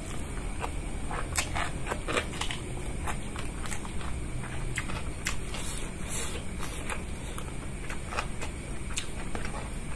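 Close-miked eating: noodles slurped in by hand and chewed, a run of short wet mouth clicks and smacks over a steady low hum.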